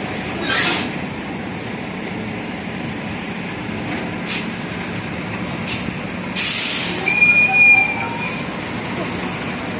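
Container truck's diesel engine running steadily, with short air hisses and, about six and a half seconds in, a louder hiss typical of air brakes, followed by a brief high squeal.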